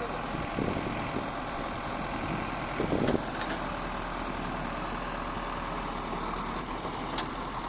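An engine running steadily, with a few short knocks about three seconds in and again near the end.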